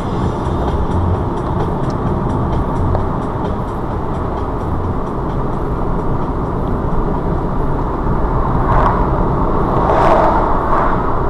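Car road and engine noise heard inside the cabin as the car pulls away from a roundabout at about 25 mph, with faint regular ticking in the first few seconds. Near the end a louder rush comes as a lorry passes close alongside.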